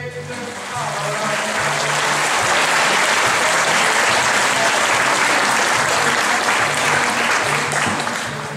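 Audience applauding, building up about a second in and tailing off near the end.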